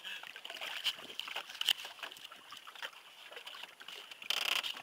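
Water lapping and splashing against the side of a small drifting boat, with scattered clicks and knocks and a louder burst of noise near the end.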